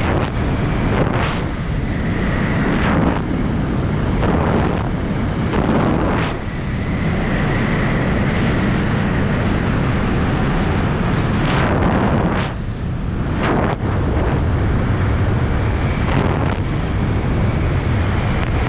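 Airflow rushing over a skydiver's helmet-camera microphone during flight under an open parachute canopy: a loud, steady rush that swells in gusts several times.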